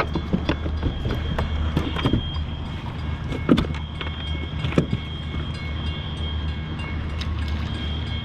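Drawbridge machinery running as the bascule span lifts, heard from right underneath: a steady low hum with a high whine over it, and scattered metallic clanks and creaks.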